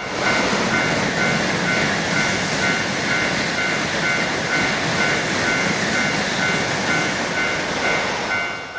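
A train passing through a railroad crossing, a steady rushing noise, with the Japanese crossing bell still ringing faintly underneath at about two and a half strokes a second. Near the end the train noise drops away and the bell strokes come through clearly again.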